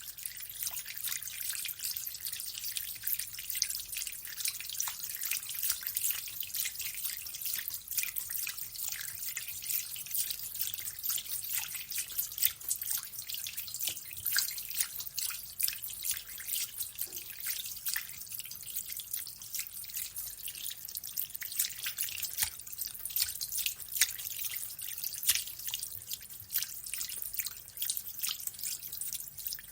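Water dripping and splashing: a dense, irregular patter of many small drops.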